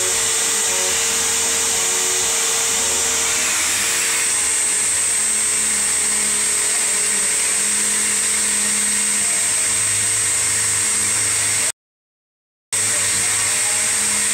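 Upright vacuum cleaner running steadily with a high-pitched whine. The sound drops out completely for about a second near the end.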